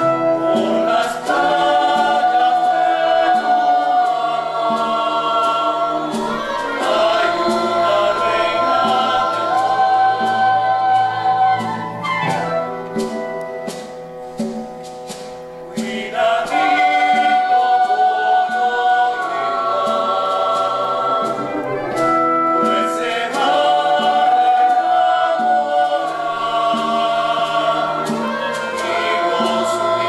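Mixed choir of men's and women's voices singing long held chords with an orchestra accompanying. About halfway through the sound thins and drops for a few seconds, with light scattered taps, then the full choir comes back in.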